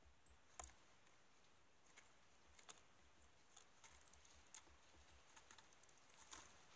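Near silence broken by faint, irregular small clicks and ticks, about a dozen, the clearest about half a second in and near the end.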